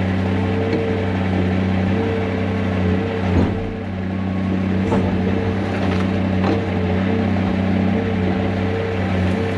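Heavy diesel engine of earthmoving equipment running steadily, with a few short knocks and clunks over it.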